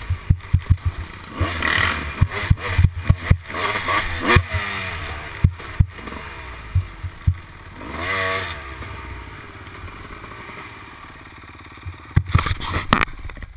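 Kawasaki dirt bike engine revving up and down on a rough trail, heard from a helmet camera, with frequent sharp knocks and clatter over bumps. A cluster of knocks comes near the end.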